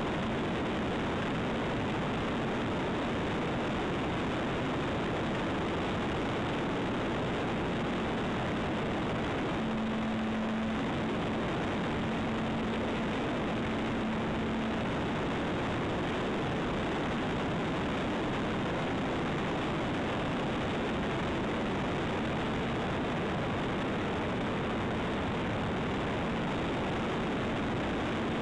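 Onboard sound of a radio-controlled Zivko Edge 540 model aerobatic plane in flight: a steady rushing hiss of motor, propeller and airflow over the plane, with a low steady hum that grows stronger for about five seconds in the middle.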